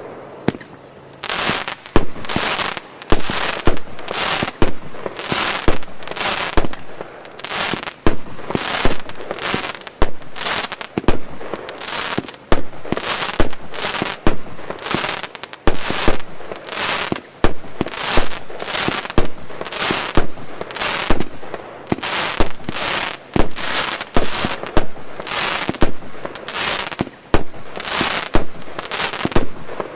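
Wolff Artillery 120-shot firework compound firing shot after shot at a fast rate, about one to two a second. Each shot is a sharp bang trailed by a short hiss.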